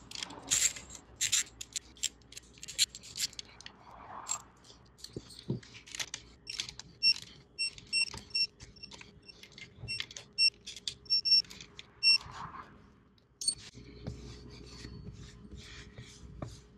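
Metal hand tools and engine parts clinking, clicking and scraping in irregular short knocks, with a run of short high-pitched chirps around the middle.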